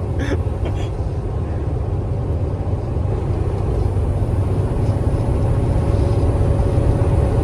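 Steady drone of a KamAZ-4308 truck's diesel engine and road noise heard inside the cab while driving, with a steady hum running through it; it grows slightly louder toward the end.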